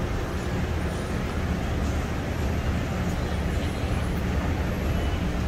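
Steady low rumble and hum of a commercial kitchen's exhaust hood fans and running equipment.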